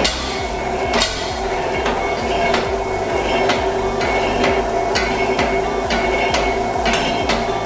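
Punch press punching holes in steel plate: a sharp clunk about twice a second over the machine's steady hum.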